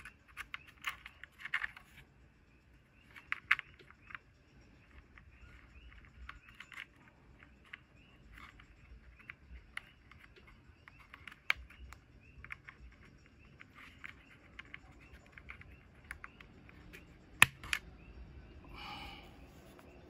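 NovelKey Cream linear mechanical keyboard switches, mounted in a bare plate without keycaps, pressed and released by a fingertip. They make clusters of light clacks with irregular pauses, and one sharp loud click comes about three-quarters of the way through. Near the end there is a short scratchy rustle.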